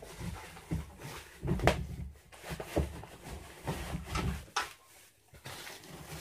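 Gaming-chair parts and their packaging being handled in a cardboard box: plastic wrap rustling and a string of dull knocks and thumps, the loudest about a second and a half in.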